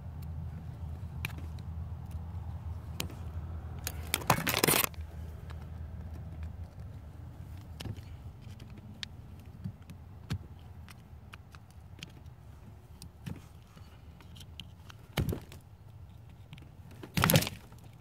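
Scattered small clicks and scrapes of a pick or awl working at the red plastic centre lock in a Ford EEC-IV harness connector, with two louder handling noises about four seconds in and near the end. A steady low hum runs underneath.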